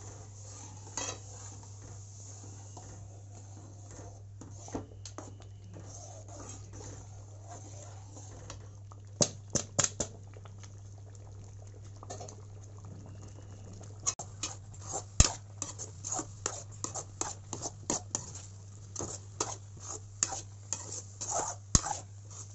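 A steel spoon stirring rava upma in a steel pan, clicking and scraping against the metal as the semolina thickens in the water. The clicks are scattered at first and come thick and fast in the second half, over a steady low hum.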